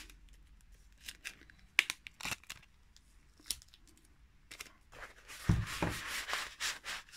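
Handling noise of craft materials: a few light clicks and rustles, then, about two-thirds of the way in, a longer stretch of rustling with a dull knock as a rolled cardboard tube is picked up against a sheet of polyester batting.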